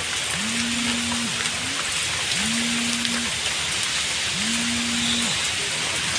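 Heavy rain pouring down onto pavement and parked cars, a steady hiss. Over it a low hum repeats about every two seconds, each lasting just under a second and sliding up at the start and down at the end.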